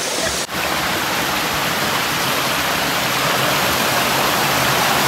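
Steady rushing hiss of a rocky creek tumbling over small cascades, with a brief dip about half a second in.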